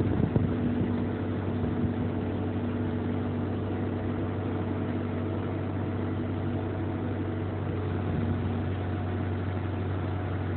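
Engine running at a steady speed with an even low hum, from the machine pulling on the recovery chain.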